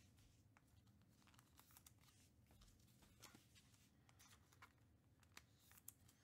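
Near silence: room tone with faint, scattered ticks and rustles of trading cards being handled.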